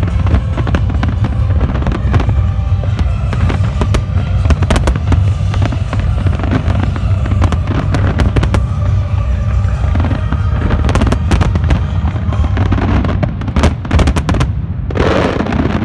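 Aerial fireworks barrage: shells bursting in quick succession over a constant low rumble, with dense crackling. The bangs stop near the end.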